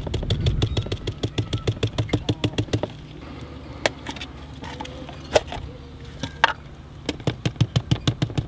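Rapid, even clicking, about six a second, of epoxy being mixed with colloidal silica filler in a plastic cup, pausing in the middle for a few single knocks before starting again. A steady low hum runs underneath.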